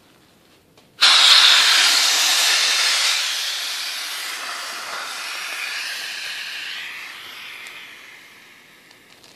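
A 16-gram nitrous oxide cartridge emptying into a plastic trash bag. It starts suddenly as a loud hiss about a second in, then gradually fades over the following seconds as the cartridge runs down.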